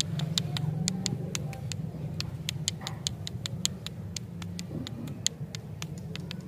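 Rapid, uneven ticking clicks, about five a second, over a steady low hum.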